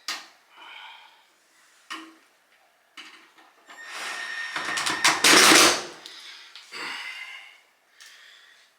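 Knocks, clatter and scraping of dryer cabinet parts being handled and fitted back during reassembly, with a longer, louder scrape a little past the middle.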